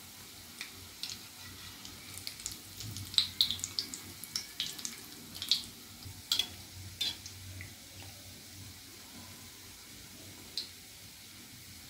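Sesame-coated sweet potato balls deep-frying in hot oil over a medium flame: a low steady sizzle with scattered crackles and pops, busiest a few seconds in and thinning toward the end.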